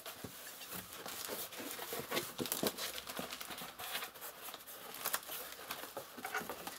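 Packing material crinkling and rustling in a string of irregular crackles as hands dig into a parcel to unpack it.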